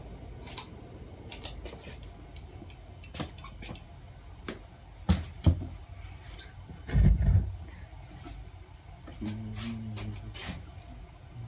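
Casablanca Panama II ceiling fan running on high while it wobbles: a steady low rumble with scattered light clicks. There are a few heavy thumps about five and seven seconds in, and a short hum about nine seconds in.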